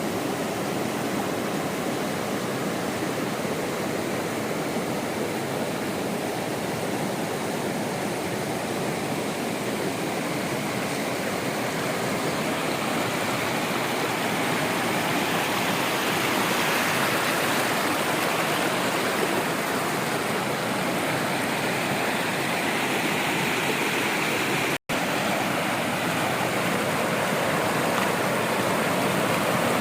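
Waterfall: a steady rush of falling water. It drops out for an instant about five seconds before the end.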